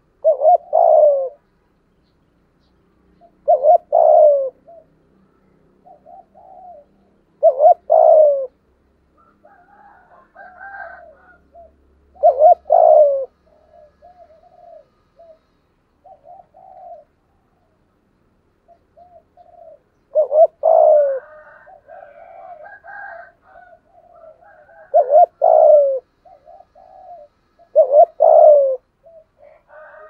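Spotted dove cooing: seven loud coo phrases, each about a second long and falling in pitch, repeated every few seconds with a longer pause midway. Fainter, higher-pitched bird calls fill the gaps between them.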